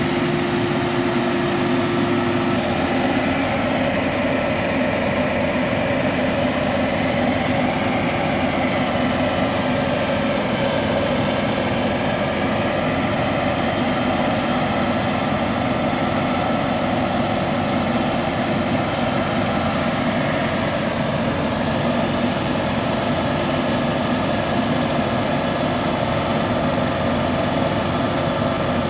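Heavy engine running steadily at a constant speed, with no revving.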